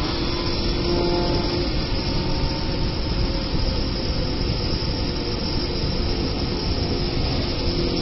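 Double-spindle wood turning lathe running, its cutters shaping two spinning wooden blanks at once: a steady machine rumble with the hiss of cutting.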